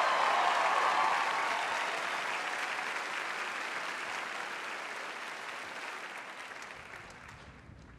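Audience applauding, loud at first and gradually dying away.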